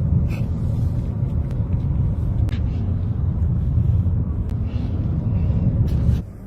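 A car driving, a steady low rumble of engine, road and wind noise with scattered sharp clicks, cutting off suddenly near the end.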